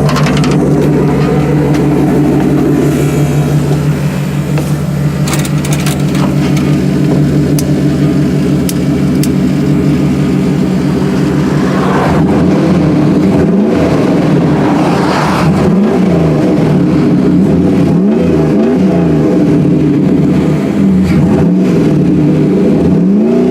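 Jeep engine running at a steady idle, then revved again and again in the second half, its pitch rising and falling every couple of seconds.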